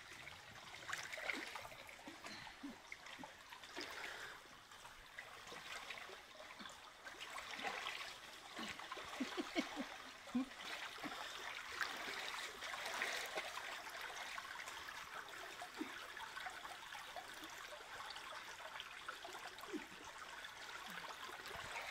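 Shallow stream water trickling, with small splashes and sloshing as people wade through it, dragging a mosquito net along the bottom.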